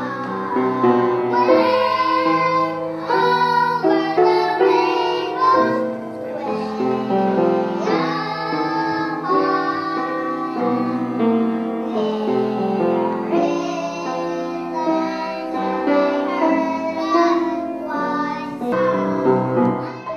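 A group of young children singing a song with piano accompaniment.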